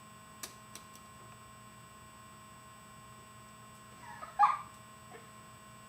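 A dropped fidget spinner bouncing and settling on the floor: three light clicks within the first second. About four and a half seconds in, one short, loud, high-pitched yelp.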